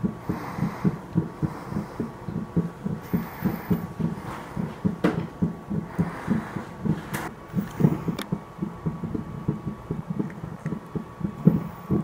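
Rapid, even, low pulsing like a fast heartbeat, about three beats a second, over a faint steady high tone, with a few brief clicks.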